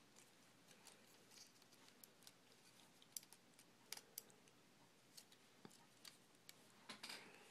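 Faint, scattered clicks of a plastic action figure's leg joints being adjusted by hand, with a few louder clicks near the end.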